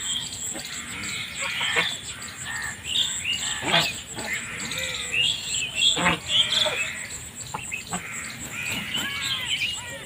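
A flock of domestic geese calling: many short, overlapping honks and chattering calls, the loudest about four and six seconds in.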